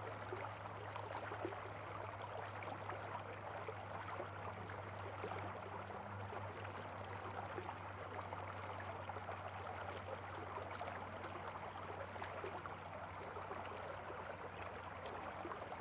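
Faint steady rushing noise with a low steady hum underneath.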